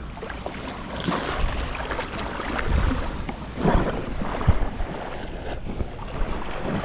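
Wind buffeting the microphone over moving water, with a few louder irregular knocks or splashes around three to four and a half seconds in.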